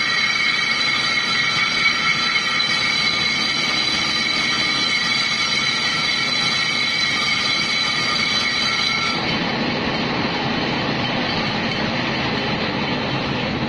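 Metal lathe turning a motorcycle rear brake drum while the cutting tool works the drum's inner braking surface: a steady squealing ring of several high tones. About nine seconds in, this gives way to a rougher, noisier cutting sound. The cut roughens the glazed braking surface so the brake shoes grip.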